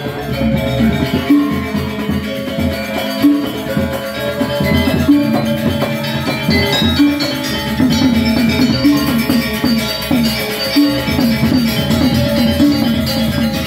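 Balinese gamelan ensemble playing: bronze-keyed metallophones struck with mallets in dense, ringing patterns. The playing gets somewhat louder about eight seconds in.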